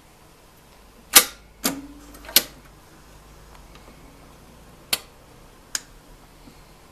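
Sharp mechanical clicks from a Philips AG9105 record changer's push-keys and automatic changer mechanism as it is started and cycles the tonearm over the record. There are three clicks between about one and two and a half seconds in, one with a brief low ring, then two more later on, over a faint low hum from the turntable drive.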